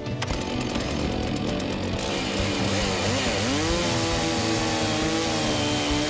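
Chainsaw on a Logosol Farmer's Sawmill ripping a log lengthwise along the guide rail at full throttle. About three seconds in the engine note dips and climbs again, then holds steady.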